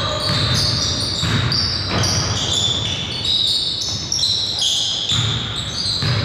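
Basketball bouncing on a gym court during a game, with high-pitched squeaks throughout.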